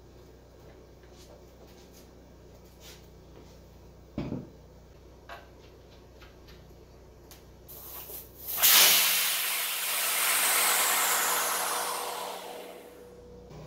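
A few light clicks and a sharp knock of parts being handled. About two-thirds of the way in, a loud hiss starts suddenly, holds for about four seconds and then fades out.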